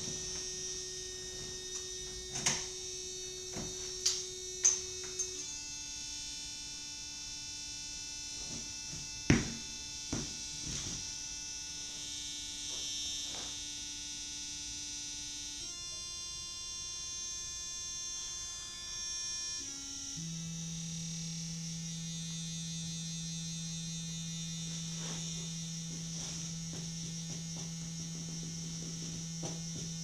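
Electronic noise music: a steady buzzing drone with overtones that jumps abruptly to a new pitch several times, over a high hiss. A few sharp knocks fall in the first ten seconds or so.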